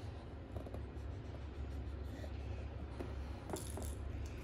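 A French bulldog sniffing and licking at a baby's hands, quiet close-up mouth and nose sounds, with one brief sharper sound about three and a half seconds in.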